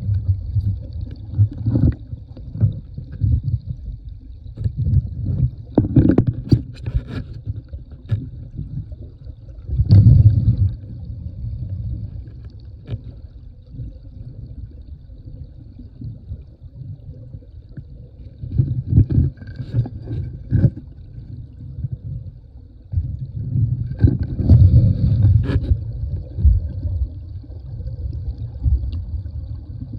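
Muffled creek water sloshing and gurgling, with louder surges and short sharp knocks and scrapes several times as gravel is worked by hand.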